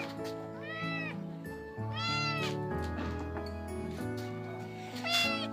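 Hungry kittens meowing for food: about four rising-and-falling meows, the loudest near the end, over background music with long held notes.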